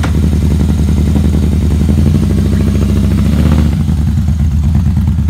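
Harley-Davidson motorcycle engine running steadily, a loud, low, fast-pulsing exhaust note that softens slightly about three and a half seconds in.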